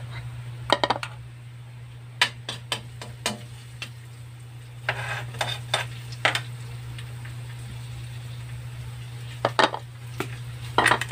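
Garlic frying in hot oil in a steel wok, with a metal utensil clinking and knocking against the wok in short clusters. A brief louder sizzle comes about five seconds in as chopped onion goes into the oil. A steady low hum runs underneath.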